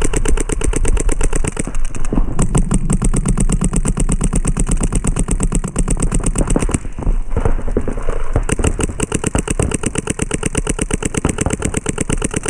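Paintball markers firing in long rapid strings, roughly ten shots a second, with brief pauses about two and seven seconds in.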